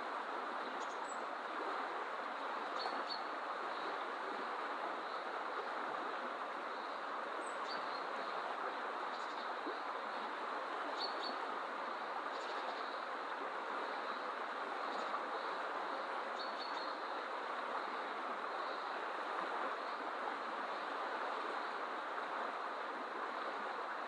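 River water rushing steadily over a shallow, rippling stretch, with short high bird chirps scattered through it.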